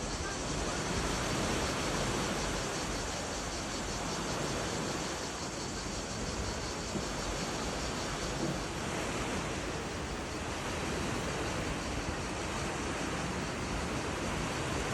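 Sea surf washing on the shore, a steady rushing noise, with a faint high, even drone of cicadas that fades out about nine seconds in.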